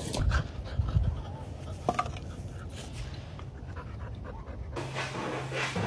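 A dog panting, with a couple of short knocks in the first two seconds.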